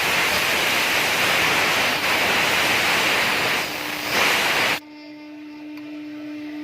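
CNC wood router at work: a loud, steady rushing hiss that cuts off abruptly about five seconds in, leaving the spindle's steady whine running on its own.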